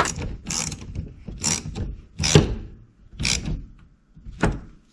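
Hose clamp on a new fuel-pump hose being tightened with a hand tool: a series of about six short mechanical strokes, roughly one a second.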